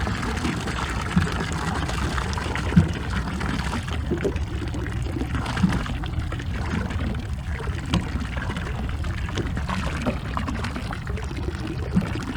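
Sea water sloshing and trickling against a small ocean rowing boat, with a short sharp knock every few seconds.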